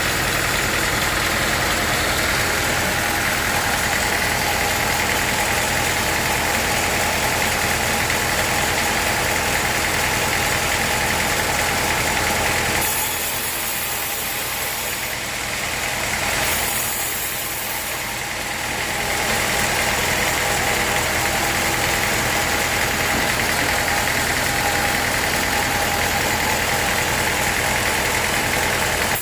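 Sawmill machinery engine running steadily, with a brief dip and change in its sound about halfway through before it settles back.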